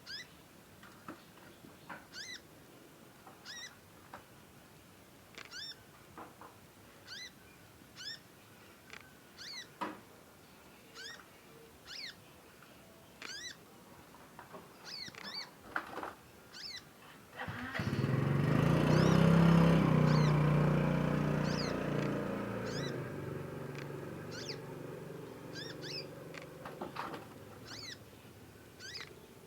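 A fledgling songbird giving short, sharp high chirps, each sweeping down in pitch, about one a second and repeated on and on: a young bird's long chirping as it learns its song. About two-thirds of the way in, a louder low rumble with a steady hum swells up and slowly fades over several seconds.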